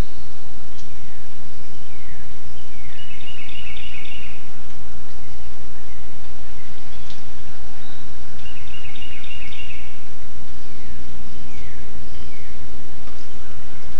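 Animal calls in trees: about every six seconds a short burst of rapid high-pitched pulses, with several brief falling whistle-like notes in between and more of them near the end, over a steady low rumble.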